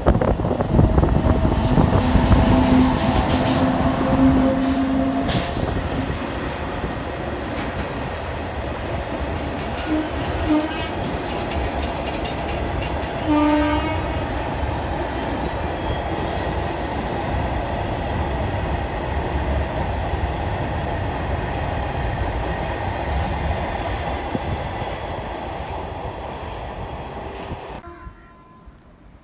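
Indian Railways electric-hauled goods train passing close by with a steady heavy rumble and wagon clatter. The locomotive's horn sounds for a couple of seconds about two seconds in and gives a short blast around thirteen seconds. High wheel squeals come in between, and the noise dies away near the end.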